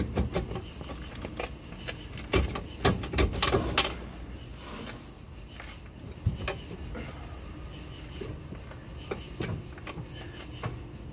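Metal knocks and clinks from the parts of a Kodiak jet-boat pump being worked loose by hand: a quick cluster of sharp knocks about two to four seconds in, then a few scattered single knocks. The parts are a tight press fit and stuck.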